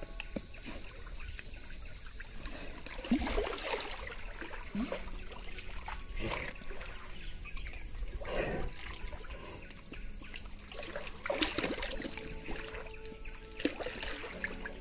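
Water sloshing and splashing as an Asiatic black bear moves about in a shallow pool, handling large blocks of ice: several separate splashes a couple of seconds apart, over a steady high hiss.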